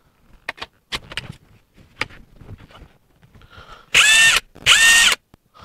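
WOSAI 20V WS-MD13 brushless cordless drill run up twice in short bursts of about half a second each near the end, its motor giving a steady high whine; a few light clicks come before, as the drill is handled.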